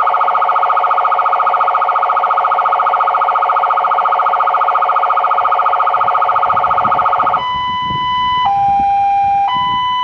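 Electronic siren of a Citroën Berlingo fire-service car sounding a rapid warble, a fast-pulsing tone, for about seven seconds. It then switches to a two-tone hi-lo pattern, a higher and a lower note alternating about once a second.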